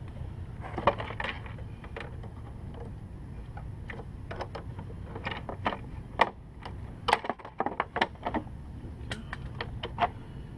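Irregular metallic clicks and clinks of tools working to unhook a spring on a lawn mower's self-propel drive, over a low steady hum.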